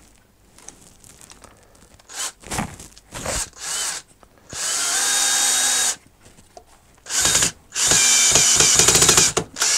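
Cordless drill-driver driving a screw through plasterboard into wood: a few short trigger blips, then longer runs of the motor whining. Near the end the clutch, set at 10, clicks as it slips, leaving the screw head not yet flush.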